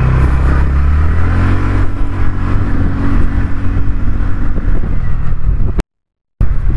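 Motor scooter's engine running under way, its pitch climbing about a second in as it accelerates uphill, then holding steady. The sound cuts out abruptly for about half a second near the end.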